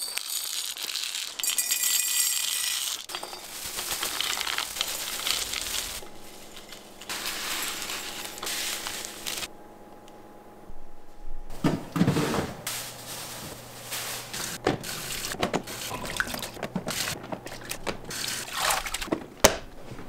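Kitchen handling sounds: dry soybeans and loose tea poured through a plastic funnel into glass jars, with clinks of glass. Later, water running and containers handled at a stainless steel sink.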